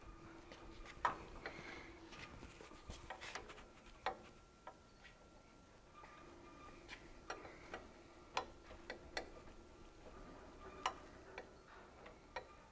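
Scattered, irregular light metallic clicks and clinks of nuts, washers and bolts being handled and fitted by hand on a steel panhard bar mount, over a faint steady hum.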